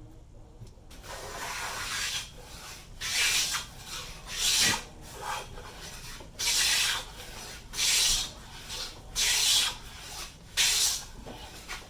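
Stanley No. 8 jointer plane taking shavings off a board: about six hissing strokes, each under a second, after a softer start about a second in.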